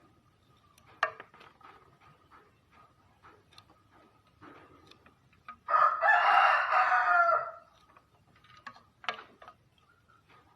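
A single long bird call of about two seconds near the middle, with a few short sharp sounds before and after it.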